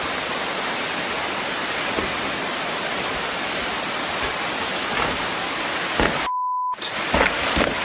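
Waterfall rushing steadily. About six seconds in, the water sound cuts out for half a second under a short steady beep, like a censor bleep, and then returns with a few dull knocks.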